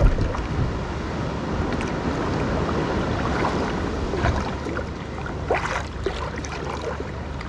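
Plastic sit-on-top kayak being pushed off and paddled, with water sloshing against the hull and wind buffeting the microphone. A knock sounds right at the start.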